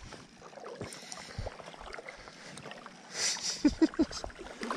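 Stream water sloshing, with small handling clicks and a brief splash about three seconds in.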